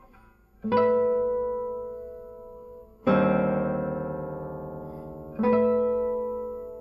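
Classical guitar playing three slow, separate chords about two and a half seconds apart, each plucked sharply and left to ring and fade; the middle chord is the fullest.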